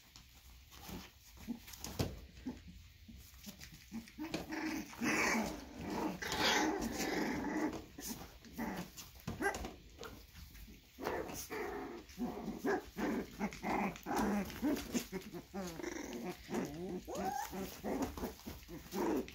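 A litter of three-week-old puppies vocalizing as they play: small growls and whines with wavering, gliding pitch, nearly continuous from about five seconds in, mixed with light scratchy ticks of paws on the pads. These are normal puppy noises at this age.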